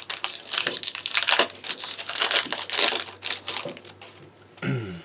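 Foil Yu-Gi-Oh! booster-pack wrapper crinkling and crumpling in the hands, in irregular bursts of rustling that die down near the end.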